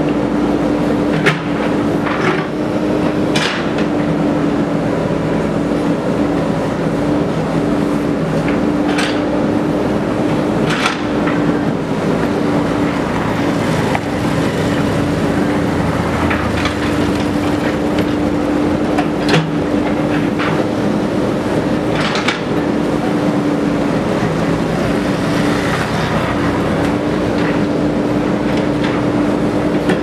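JCB 3DX backhoe loader's diesel engine running steadily under load as the backhoe arm digs, with a strong steady hum. A few sharp metallic clanks from the bucket and arm break through now and then.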